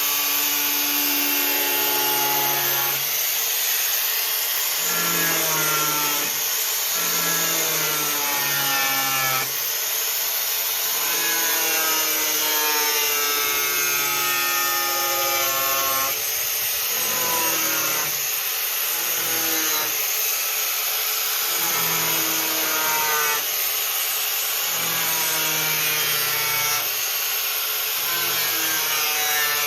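Angle grinder cutting square steel tube, running without a break, its whine shifting up and down in pitch as the wheel bites and eases off, over a constant hiss of the cut.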